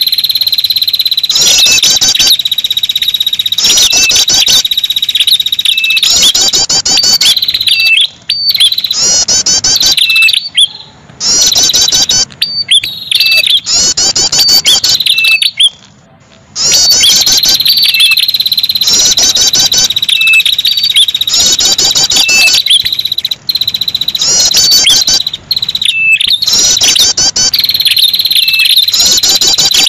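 Red-headed tailorbird (prenjak kepala merah) song played as a trapping lure call: loud, fast phrases of high trilled notes over a steady high whistle, repeated over and over with a few short breaks.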